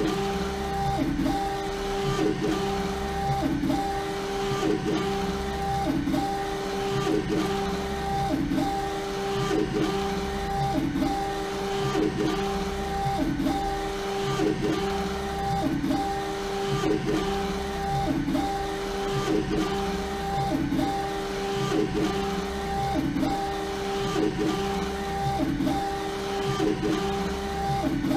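LogoJet UVx60XL UV printer printing onto a bottle turning in its rotary jig. The print-head carriage runs back and forth with a steady motor whine that dips and repeats about every second and a quarter, once per pass.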